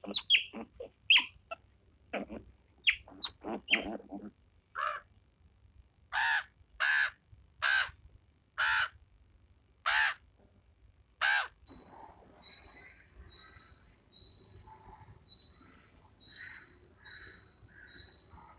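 A series of animal calls. First comes a flurry of quick chirps. Then about seven loud, evenly spaced calls follow, roughly one a second. A softer, higher call then repeats about once a second to the end.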